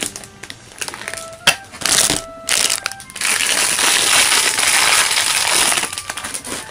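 Thin plastic packaging bag crinkling and rustling as a wooden toy railway coach is pulled out of it, with a few sharp clicks and knocks in the first seconds. The rustling is densest in the second half.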